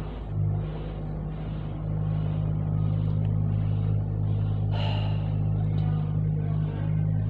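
A steady low mechanical hum, with a faint pulse repeating about once a second and a brief sharper noise about five seconds in.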